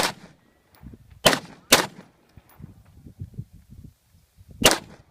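Four gunshots, sharp cracks with a short echo: one at the start, two close together about a second and a half in, and one more near the end.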